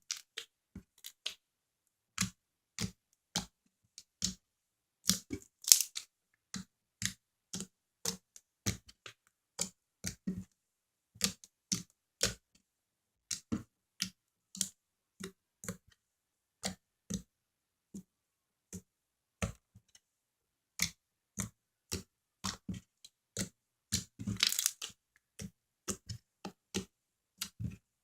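Fluffy slime being poked and squeezed by hand, giving sharp wet pops and clicks about two a second, with a quick crackly run of pops near the end.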